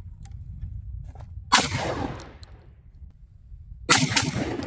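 Two 12-gauge shotgun shots from a Citadel Boss Hog semi-automatic firing high-brass loads, about two and a half seconds apart, each followed by a long echo.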